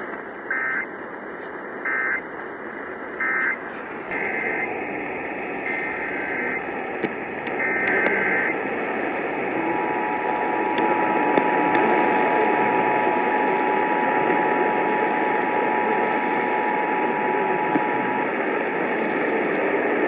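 Emergency Alert System tones received over a hissy radio signal: three short warbling data bursts of the end-of-message code about a second apart, then three longer data bursts of the next alert's SAME header, then the steady two-tone attention signal held for about eight seconds, starting about ten seconds in.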